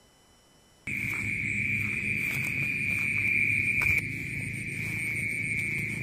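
Night insects trilling in one continuous high-pitched note that starts abruptly about a second in. Under it runs a low rustling, with a couple of short knocks.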